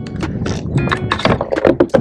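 Background music, a laid-back guitar beat, with many short sharp hits through it.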